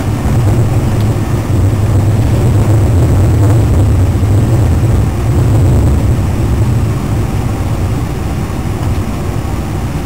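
Washington Metro train running along the track, heard from inside the car: a steady deep rumble of the train in motion, easing off slightly about seven seconds in.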